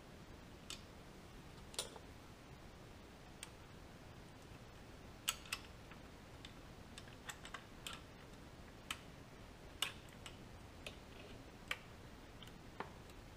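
Irregular light clicks and taps, a dozen or so, of a power feed unit's housing and metal parts knocking together as it is turned and fitted by hand onto a milling machine's knee shaft to line up its mounting holes.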